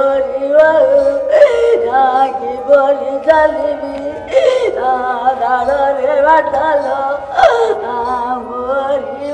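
An elderly woman singing a wailing folk lament, likely a traditional Odia kandana or bridal crying-song, her voice crying as she sings. It runs in long wavering phrases, with a new phrase starting about every three seconds.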